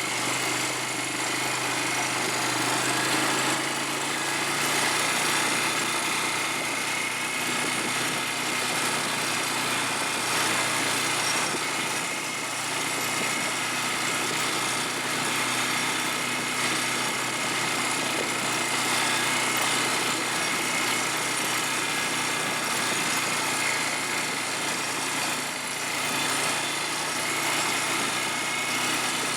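A small ATV engine running steadily.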